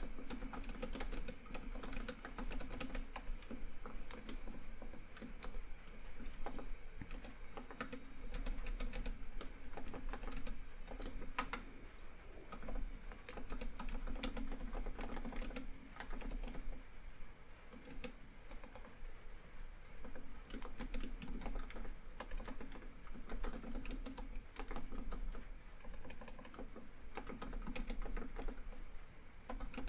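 Laptop keyboard typing in irregular runs of key clicks, with a short lull partway through, over a steady patter of rain on a tin roof.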